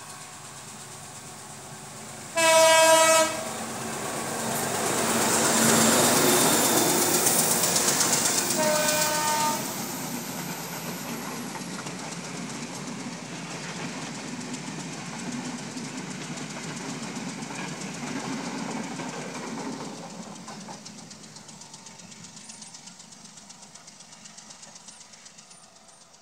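Sri Lanka Railways M10 diesel locomotive passing at speed with a passenger train: a loud horn blast about two and a half seconds in and a shorter, quieter one around nine seconds. The locomotive's noise peaks as it goes by, then the carriages clatter past over the rails and fade away.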